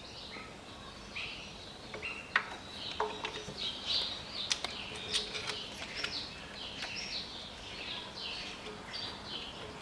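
Small birds chirping over and over in quick short calls, with a few sharp clicks in between.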